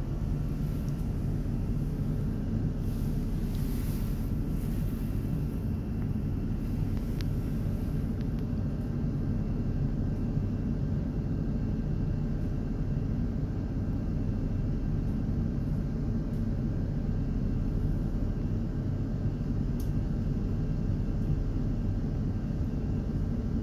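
Steady low hum and rumble heard inside a tram's passenger cabin while the tram stands at a stop.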